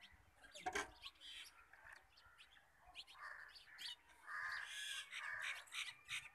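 Birds calling, with harsh caw-like calls through the second half, and one sharp knock under a second in.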